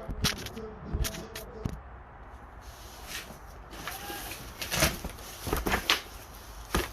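Clicks and knocks from handling a kids' bicycle seat, seat post and clamp: a few single knocks early on, then a cluster of sharper clicks about five to six seconds in and one more near the end.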